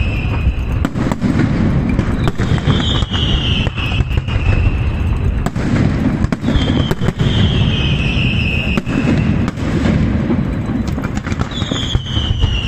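Aerial fireworks display going off continuously: dense crackling and sharp bangs, with whistling shells whose whistles fall in pitch about three times across the stretch.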